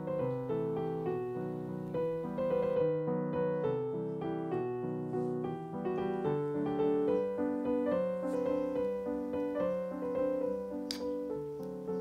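Background piano music: a melody of single notes over changing chords.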